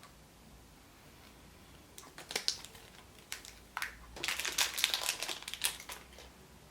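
Crinkling and clicking of the wrapper and plastic of a Chupa Chups surprise egg being handled and unwrapped: a few crackles about two seconds in, then a dense run of crinkling for about a second and a half near the end.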